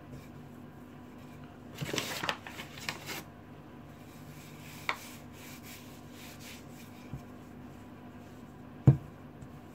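Wooden rolling pin rolling biscuit dough on a wooden worktop: a stretch of rubbing and knocking about two seconds in, a sharp click near five seconds, and a sharp, loud thump of the pin against the board near the end.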